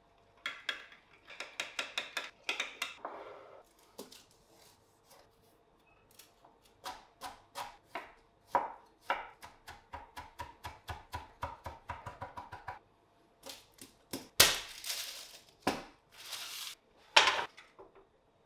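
A metal fork stirs quickly in a small glass bowl, making rapid clicks against the glass. Then a chef's knife chops on a wooden cutting board in quick, regular strokes. Near the end come a few louder scrapes and knocks.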